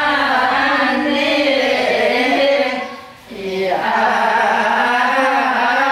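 Singing: a held melodic vocal line that breaks off briefly about three seconds in, then resumes.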